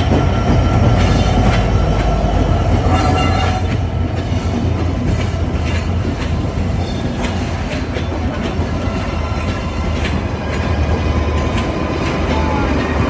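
Passenger train rolling past, a loud steady rumble with its wheels clacking repeatedly over the rail joints.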